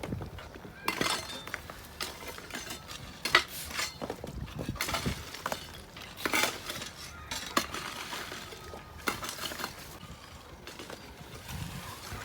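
Irregular clinks and knocks of stones and hand tools striking one another while foundation stones are being laid.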